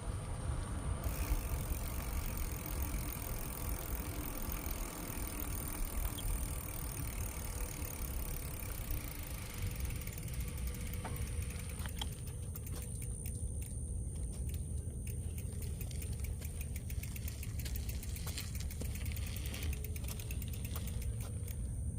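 Bicycle ride with steady wind and tyre rumble. From about halfway through comes the rapid ticking of the rear freewheel hub as the bike coasts.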